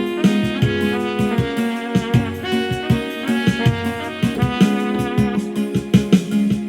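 Instrumental gospel samba: a trumpet plays a melody of held and moving notes over a steady, regular percussion beat and a sustained bass note.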